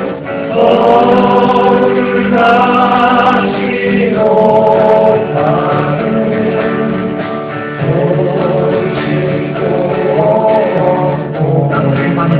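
Live song: several voices singing long held notes together in harmony.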